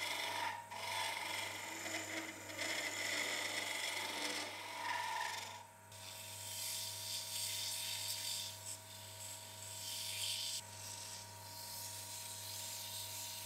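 Wood lathe running while a gouge cuts and shapes a spinning wooden tool handle, a scraping cut. About six seconds in the cutting stops and sandpaper is pressed against the spinning wood, a steady sanding hiss.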